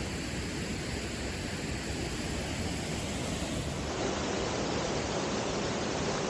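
Steady rushing of water from a small waterfall on a stream.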